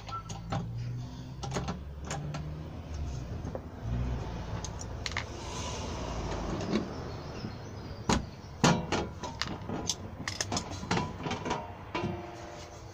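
Sheet-metal door plate being handled against a front door and step: a run of sharp metallic clicks and knocks, the loudest about eight and a half seconds in, over a low rumble in the first half.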